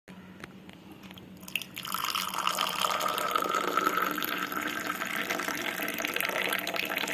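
Water running from a kitchen tap into a sink. It starts about two seconds in and then flows steadily.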